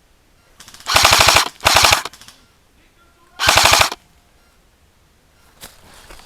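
Airsoft automatic electric gun firing three short full-auto bursts, each a rapid chatter of shots lasting about half a second.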